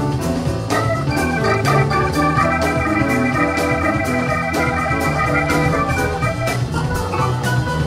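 Live band music: a Hammond organ is out front, holding a high note for several seconds, over electric bass and a steady drum beat.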